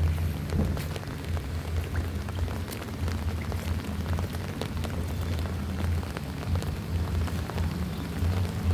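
Rain falling, with many sharp drop ticks over a steady low rumble.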